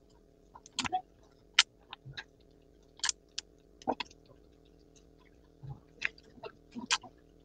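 Crisp roasted seaweed (gim) crackling as it is torn into pieces by hand: a dozen or so sharp, irregular crackles.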